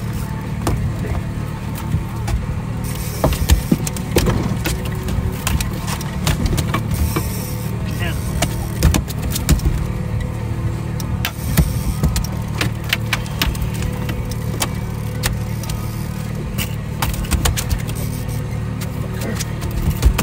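Mercury outboard motor running steadily, with scattered sharp clicks and knocks from fishing gear and a landing net being handled on the boat deck.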